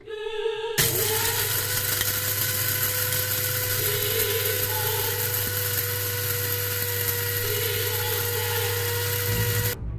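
Electric coffee grinder running steadily as it grinds coffee beans, with a steady motor whine; it starts about a second in and cuts off just before the end.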